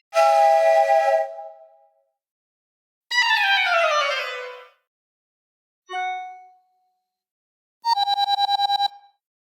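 Four short iPhone alert tones play one after another with silence between them. First comes a bright chord, then a falling sweep, then a brief ding, and near the end a fast trill of about ten pulses a second.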